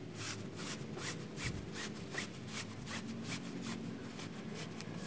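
Cotton fabric rustling and rubbing in soft, repeated strokes, about three or four a second, as a sewn tie is worked right side out by hand.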